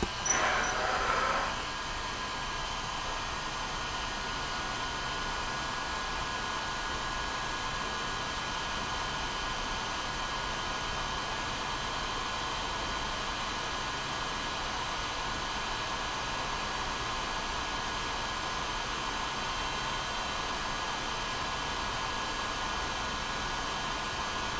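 Electric heat gun blowing hot air steadily: a rush of air with a faint steady motor whine, louder for the first second or so and then level. It is heating a calculator part to free a stuck taper pin.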